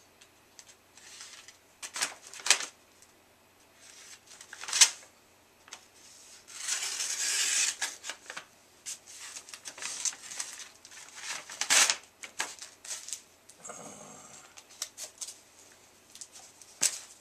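A padded paper mailer being cut and torn open by hand: paper rustling and crinkling, with a longer ripping stretch about six to eight seconds in and scattered sharp clicks and taps from handling the envelope and the comics inside.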